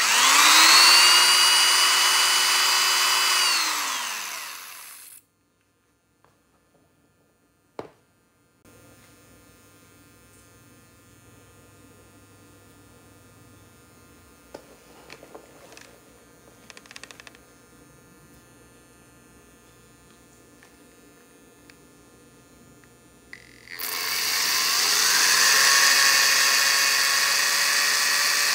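DeWalt DW106 corded drill running on the output of a homemade 12 V to mains inverter: its motor whines up to speed, runs for a few seconds and winds down. After a long pause with only a faint steady hum, a click and a few light taps, the drill starts again about 24 seconds in and keeps running.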